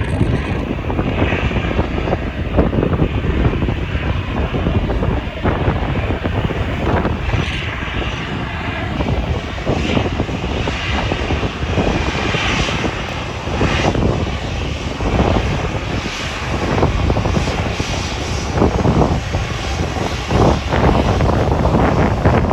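Jet airliner engines running loud and steady as an easyJet Airbus A320-family jet departs, with gusts of wind buffeting the microphone throughout.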